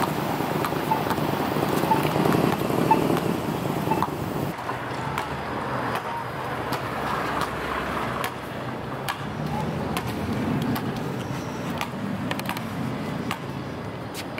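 Street ambience: a steady hum of road traffic, with scattered light taps.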